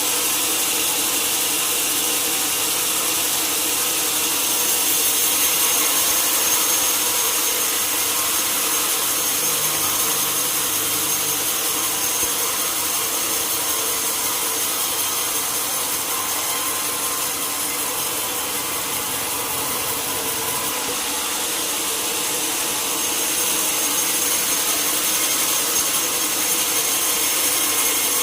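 Sawmill saw cutting lengthwise through a large log, a steady whine over a hiss that holds level throughout.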